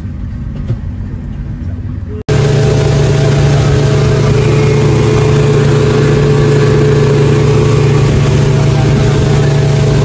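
Yamaha 200 hp outboard motor: a low rumble at first, then, after a sudden cut about two seconds in, running steadily at speed with a rush of water from the wake.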